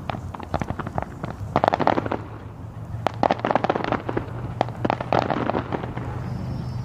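Fireworks going off: dense strings of rapid crackling pops that come in three bursts, each about half a second long and roughly a second and a half apart.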